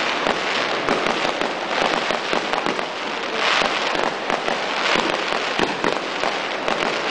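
Fireworks and firecrackers going off in a dense, unbroken crackle of many rapid bangs.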